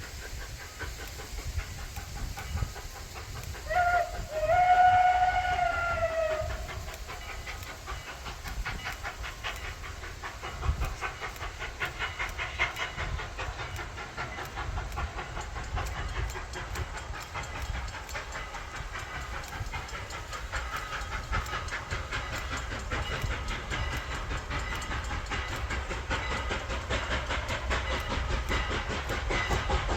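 Pennsylvania Railroad Banshee chime whistle on 2-6-0 Mogul steam locomotive Canadian National No. 89 sounding a brief toot and then a longer, sagging multi-note blast about four seconds in. Afterwards the steam train runs on with a fast rhythmic clatter, hiss and low rumble, growing slightly louder toward the end.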